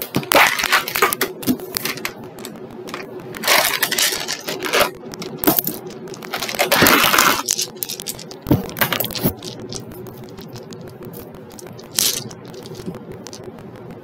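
Plastic tub of dice being twisted open and handled, the dice rattling and clattering against the plastic in several short bursts.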